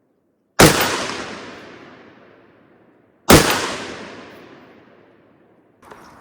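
Two AR-15 rifle shots about two and a half seconds apart, each cracking sharply and then rolling off in a long echo.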